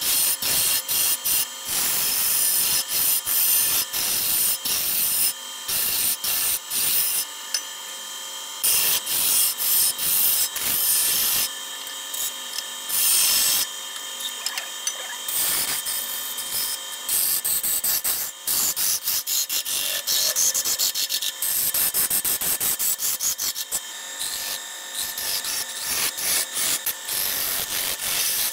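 Wood lathe spinning a large hardwood cylinder while a hand-held turning tool cuts it. Scraping cuts start and stop every second or so, over the lathe's steady hum.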